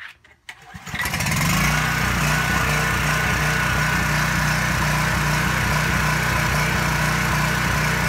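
Coleman Powermate 3500-watt open-frame generator with a Subaru engine starting up about a second in, then running steadily and loudly with no load connected.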